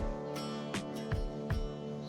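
Background music with a steady beat, about two and a half beats a second, over sustained chords.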